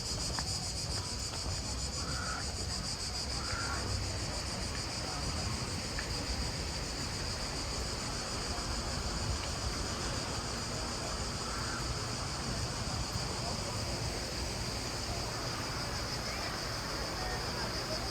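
Steady, high-pitched buzzing of an insect chorus that runs unbroken, over a low even rumble.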